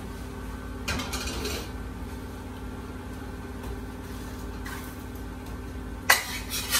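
A steel wok and spatula being handled on a gas hob: a short scrape about a second in, then two sharp metal clacks near the end, over a steady low hum.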